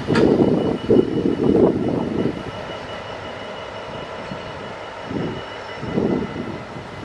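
Wind buffeting the microphone in gusts over the steady drone of idling diesel locomotives, as one locomotive draws slowly away after being uncoupled. The gusts come in the first two seconds and again about five seconds in, with a short sharp click at the very start.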